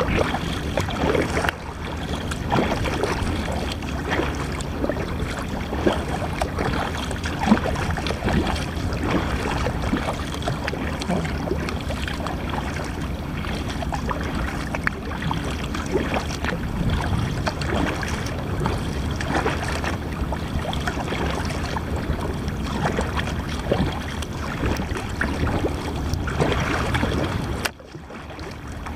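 Wind buffeting the microphone and water lapping against a kayak's hull, a steady rushing with small splashy crackles that drops away suddenly for about a second near the end.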